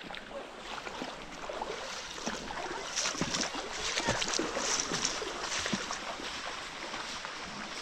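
Water splashing and sloshing as someone moves through a creek pool: a steady wash of many small splashes that grows louder over the first few seconds.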